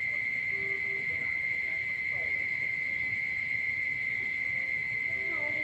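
Steady, unbroken high-pitched chorus of calling frogs and insects after rain, with a few short, fainter lower calls.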